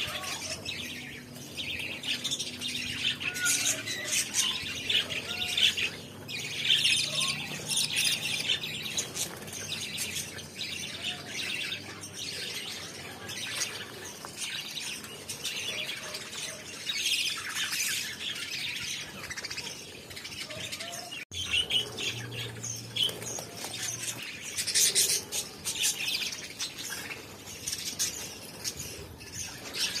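A flock of budgerigars chattering and chirping continuously, a dense overlapping warble of many birds at once.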